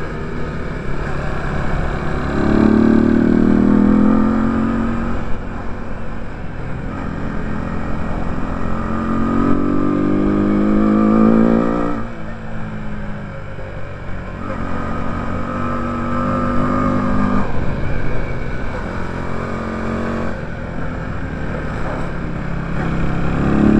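Onboard sound of a bucket go-kart's FXR150 motorcycle engine at racing speed. It revs up with rising pitch along the straights and drops off sharply for the corners, several times over.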